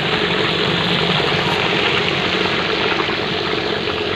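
Food deep-frying in hot oil: a steady, loud sizzling hiss.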